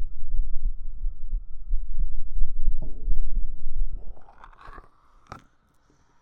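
A real human heartbeat recorded up close on the chest with binaural microphones: deep thumps pulsing steadily, stopping about four seconds in. A brief rustle and a single click follow.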